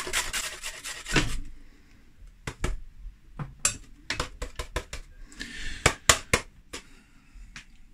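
A carrot grated on a metal box grater into a glass bowl: quick rasping strokes, about five a second, stop a little over a second in. Scattered knocks and clinks of the metal grater against the glass bowl follow as it is handled over the bowl.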